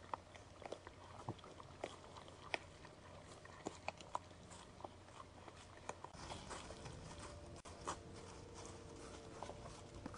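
White-tailed deer stepping through dry fallen leaves: irregular sharp clicks and crackles, most of them in the first six seconds. A faint steady hum comes in about six seconds in.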